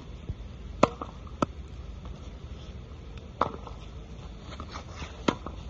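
Tennis ball being hit against a practice wall on a wet hard court: racquet strikes, wall rebounds and bounces give four sharp smacks at uneven intervals, with a few fainter knocks between them, over a steady low background noise.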